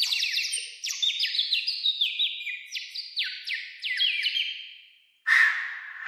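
A hand-held bird whistle blown at the mouth in quick, overlapping chirps that each slide downward and hang in the hall's echo. Near the end, two louder breathy blasts about a second apart.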